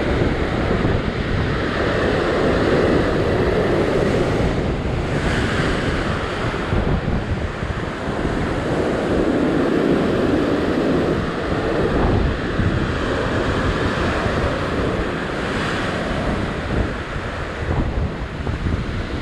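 Ocean surf breaking and washing over a rock ledge, swelling louder about three and ten seconds in, with wind buffeting the microphone.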